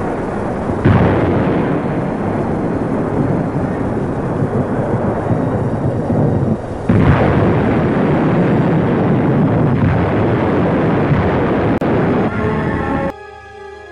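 Anti-aircraft rocket projectors firing salvos: a loud, continuous rushing noise that surges sharply about a second in and again about seven seconds in, then cuts off suddenly near the end.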